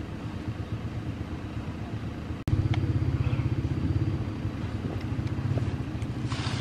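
A motor vehicle's engine running with a low, steady rumble. About two and a half seconds in it cuts out for an instant and comes back louder.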